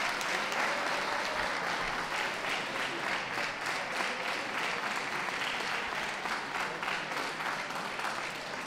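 Audience applauding, a steady spatter of many hand claps that eases off a little near the end.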